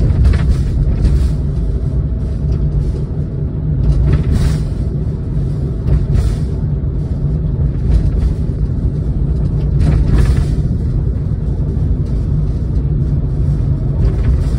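Steady low rumble of a vehicle driving on an open road, heard from inside the cab, with music playing over it.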